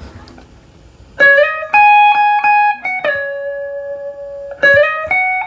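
Semi-hollow electric guitar playing a single-note reggae solo line: about a second of faint string noise, then a phrase of picked notes stepping between pitches, with one note held for over a second in the middle before a few quicker notes near the end.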